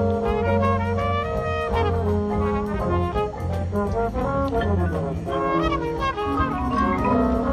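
Drum and bugle corps performing live: the brass line plays full held chords over percussion, with runs of notes sliding down and then back up in the middle.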